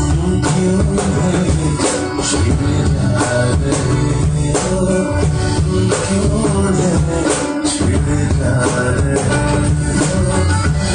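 Instrumental interlude of a Hindi song cover: band-style backing music with a steady beat and percussion, no sung words.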